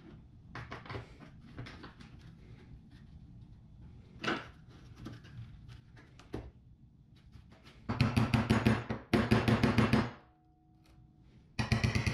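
Workshop handling sounds on a plywood workbench: scattered light knocks of tools and parts being moved, then two loud runs of rapid clicking strikes about two-thirds of the way in, and another near the end.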